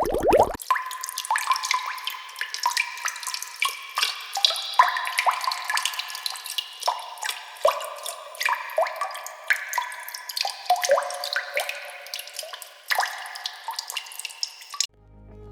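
Water dripping: a quick, irregular run of drops plinking into water, several a second, each a short note rising in pitch. It cuts off suddenly near the end.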